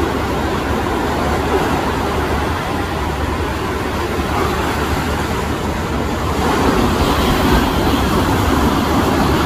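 Steady rushing noise of surf on the beach and wind on the microphone, getting a little louder about seven seconds in.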